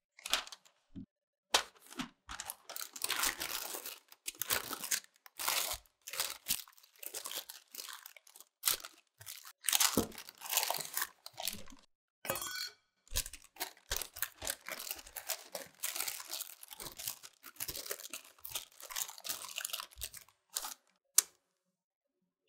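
Parchment paper rustling and crinkling in irregular bursts as sheets are handled and pressed into a round cake tin to line it, with one sharp tap near the end.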